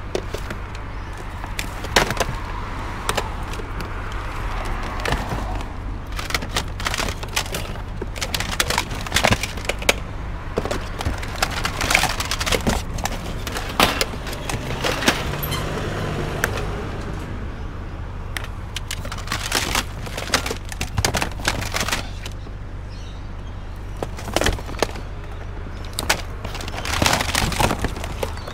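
Irregular knocks and clatter of hard objects being shifted and handled while scavenging through a pile of discarded electronics, over a steady low rumble.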